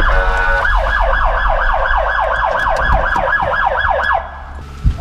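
Ford Crown Victoria Police Interceptor's siren sounding, heard from inside the car. It starts on a steady tone, switches about half a second in to a fast yelp of about five pitch sweeps a second, and cuts off about four seconds in, over the low rumble of the car.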